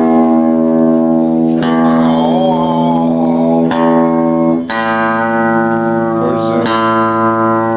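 Guitar playing long sustained notes. One chord rings for over four seconds, then the guitar shifts to a different held chord about two-thirds of the way in.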